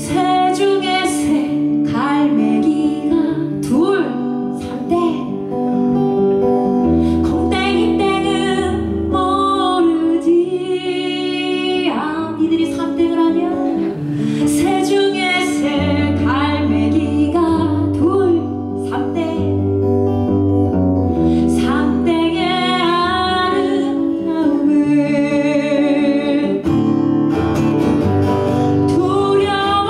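A woman singing solo to her own acoustic guitar accompaniment, a live acoustic song performance.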